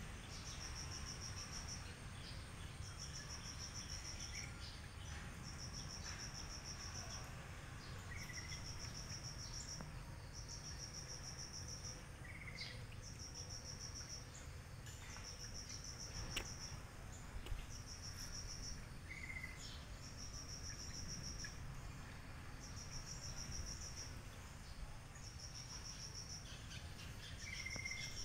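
An insect chirping steadily outdoors in high-pitched trains of rapid pulses, each about a second long and repeating roughly every two seconds. A short, lower chirp joins it every few seconds.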